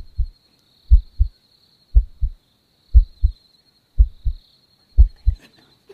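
Heartbeat sound effect: a low double thump, lub-dub, once a second at a perfectly even pace. Faint crickets chirr steadily behind it.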